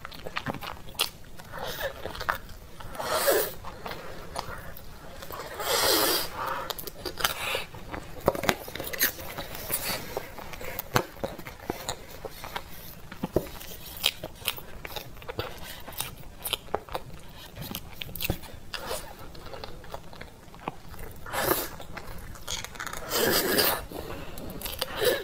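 Close-miked eating of a soft cream cake dessert: chewing and wet mouth sounds, with short clicks and scrapes of a metal spoon against a plastic tub. A few louder, longer mouth sounds stand out, about three and six seconds in and twice near the end.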